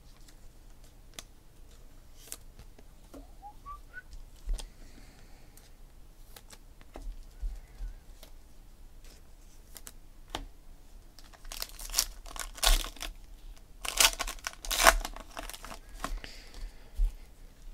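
Foil wrapper of a 2016 Panini Elite Extra Edition trading-card pack being torn open and crinkled, loudest in a cluster of ripping and crinkling about twelve to fifteen seconds in. Before that, scattered light clicks of cards being handled and a short, faint rising whistle about four seconds in.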